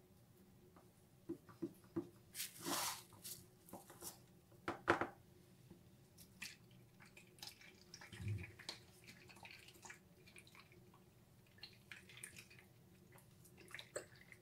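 Quiet handling sounds of cake assembly: hands pressing a genoise sponge layer into a cake ring lined with plastic wrap, and a plastic squeeze bottle squirting syrup onto the sponge. Scattered soft clicks and rustles, with a short rustle about three seconds in and a sharper tap about five seconds in.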